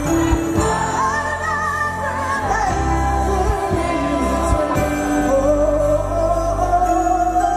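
A woman singing lead into a microphone over live band music, her voice sliding and wavering through long held notes above sustained low bass notes.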